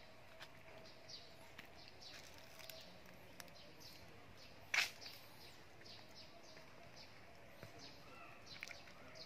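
Quiet outdoor ambience with faint, scattered short chirps and a low steady hum, broken by one sharp click about halfway through.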